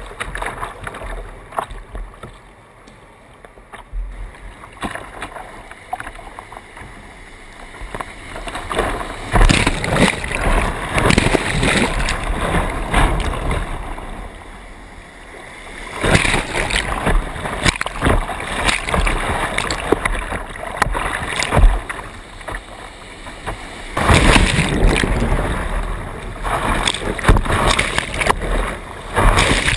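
Whitewater rapids rushing and splashing around a kayak, in loud surges a few seconds long with a calmer stretch near the start.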